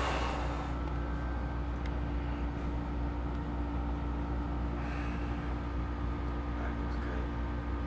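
A steady low mechanical hum with a constant droning tone, unchanging throughout.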